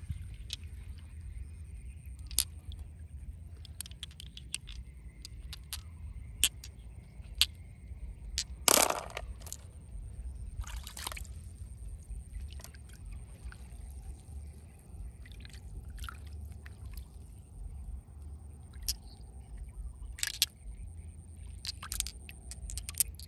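A hand splashing and rummaging in shallow water among rocks, picking up smooth stones that click together, with scattered small splashes and clicks and two louder splashes about nine and eleven seconds in.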